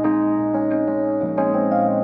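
Background music played on a keyboard, sustained chords with new notes struck about every half second.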